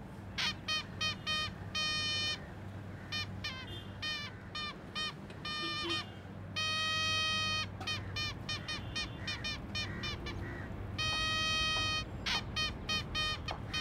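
Toy party trumpets tooting: runs of short, scooped toots broken by a couple of longer held notes about a second long.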